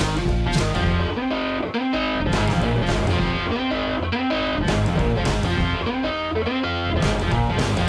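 Background music led by a distorted electric guitar.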